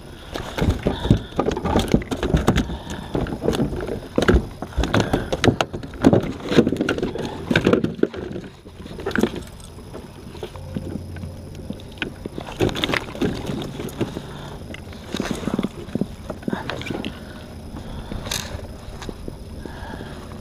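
Handling noise on a kayak: a run of irregular knocks, bumps and rustles, thickest in the first half and sparser after that, as a freshly caught redfish and the gear around the camera mount are handled.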